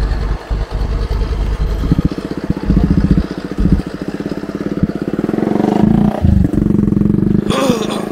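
An engine running close by with a fast, even firing rhythm, revving up briefly near the end. Wind buffets the microphone in the first second.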